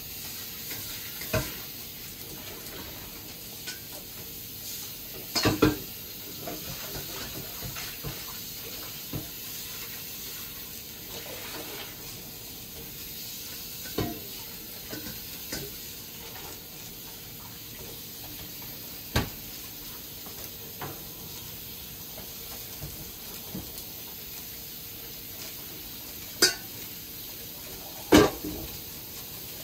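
Kitchenware being handled: pots, dishes and utensils clink and knock now and then, about half a dozen sharp hits several seconds apart, over a steady hiss.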